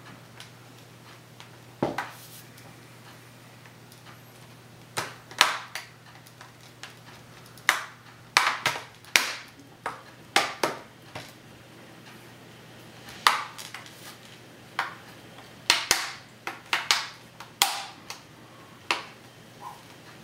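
Plastic snap clips on the Asus Eee Slate tablet's case clicking as the cover is pressed shut around its edges by hand. The sharp clicks are irregular, some single and some in quick runs of two to four.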